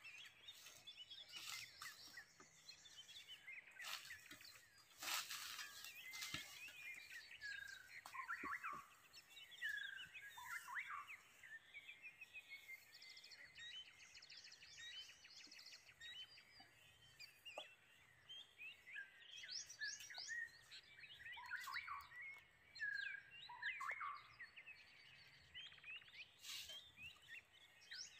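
Faint birdsong from several wild birds calling over one another: short whistles that slide down in pitch and quick runs of high chirps.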